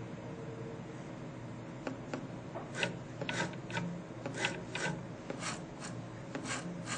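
An electric voice coil actuator's stylus tapping and sliding across an iPhone's glass touchscreen in an automated test rig, giving short rasping strokes, about a dozen irregular ones starting about two seconds in, over a steady low hum.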